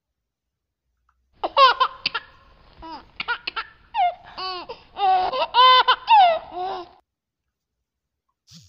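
Laughing sound effect: high-pitched giggling laughter in quick bursts for about five and a half seconds, starting about a second and a half in.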